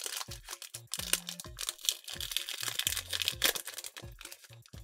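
Foil wrapper of a Pokémon trading card booster pack crinkling and tearing as it is ripped open and pulled apart, with dense rapid crackles, over background music with a steady bass line.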